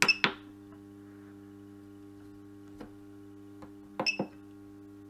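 Short electronic beeps with button clicks from an ultrasonic physiotherapy machine's front panel as its buttons are pressed, a pair near the start and another pair about four seconds in, over a steady mains hum.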